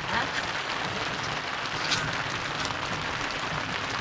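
A steady hiss of background noise, with a few faint clicks, while rice is eaten by hand from steel plates.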